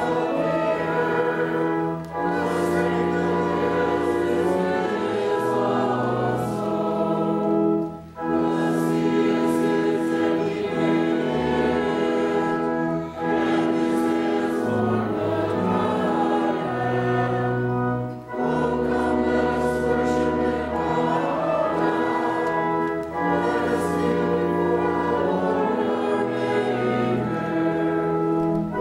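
Church congregation singing with organ accompaniment, in sung phrases of about five seconds with brief pauses between them.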